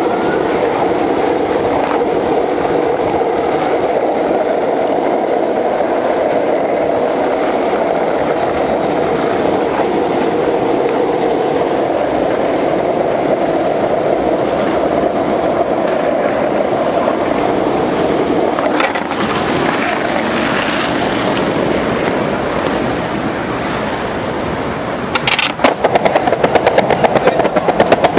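Skateboard wheels rolling steadily on smooth pavement, a continuous rumbling hiss. Near the end it turns into a fast run of clacks, about five a second, as the wheels cross the joints of paving slabs.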